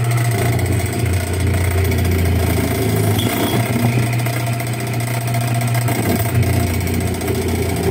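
Homemade bench drill press, driven by a repurposed electric motor with exposed copper windings, running with a steady hum while its bit drills into a small block held with locking pliers.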